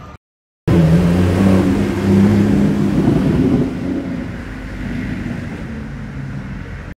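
A loud engine running, with a steady low hum under a noisy rush. It starts suddenly after a short gap of silence, is strongest over the first few seconds and then gradually eases off.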